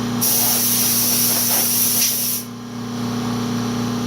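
Compressed-air blow gun giving a loud, high hiss for about two seconds, then cutting off. Under it, the California Air Tools 10020C air compressor runs with a steady hum.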